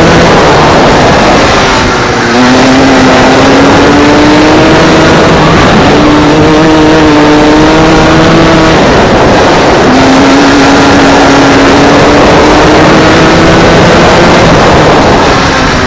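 Go-kart engine running hard, heard from on board the kart: a loud buzz whose pitch climbs slowly, dips briefly about two and ten seconds in, then climbs again, under a dense rushing hiss.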